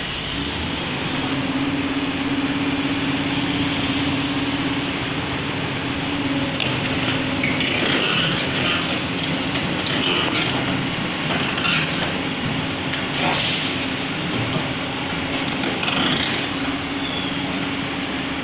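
Heavy diesel machinery running steadily as a Komatsu PC200 excavator crawls up onto a truck's tilted steel deck, with a steady low engine hum. From about seven seconds in, a run of short knocks and hisses breaks in as the tracks work their way onto the deck.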